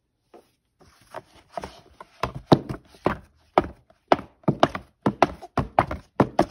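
A hardcover picture book shaken hard in the hands, its covers and pages knocking and flapping in a run of sharp knocks, faint at first and loud from about two seconds in, roughly two a second.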